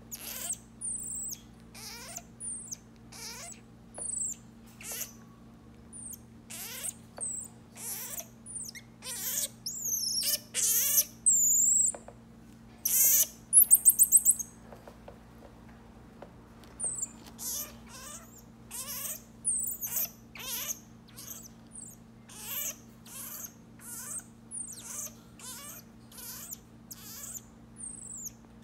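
Marmoset giving a long run of short, very high-pitched chirping calls, about one or two a second, with a louder burst of rapid trilled calls about halfway through.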